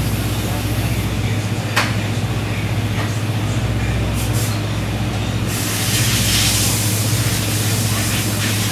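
Spray hissing onto the gear end of a roots-type Top Fuel supercharger. It stops about a second in and starts again, louder, after about five and a half seconds. A steady low hum runs underneath, with a single sharp click about two seconds in.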